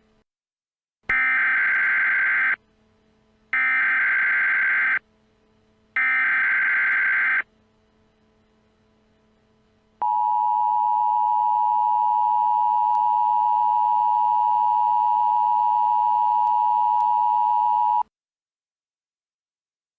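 Emergency Alert System tones. First come three stretches of SAME digital header data, each about a second and a half long with a second's gap between them. Then, after a short pause, the steady two-tone EAS attention signal holds for about eight seconds and cuts off suddenly.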